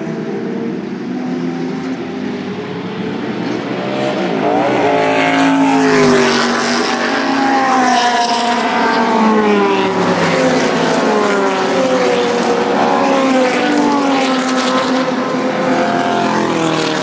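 A pack of historic formula and sports racing cars going by at speed, their engines revving loudly with the pitch rising and falling again and again. It grows louder about four seconds in as the group comes past.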